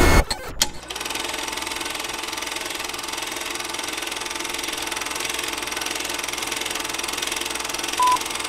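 Film projector sound effect: a steady, rapid mechanical clatter with hiss, after a few clicks in the first second. A short countdown beep sounds near the end.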